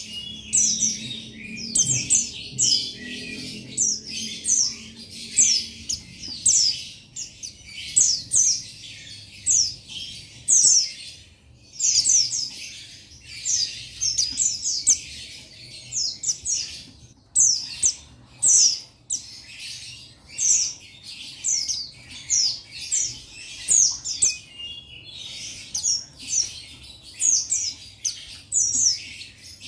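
Male white-eye (pleci buxtoni) singing: a rapid, high chirping song of quick downward-sweeping notes, in short phrases about once a second. This is the male's call to rivals.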